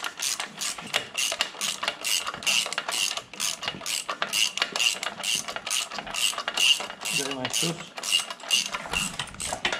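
Ratchet wrench clicking steadily, about three or four clicks a second, as it is swung back and forth to undo a bolt on a UTB 445 tractor's differential trumpet (rear axle housing).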